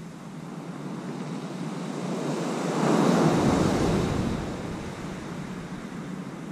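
Sea waves breaking on the beach: the surf swells to its loudest about three seconds in as a wave breaks, then eases back to a steady wash.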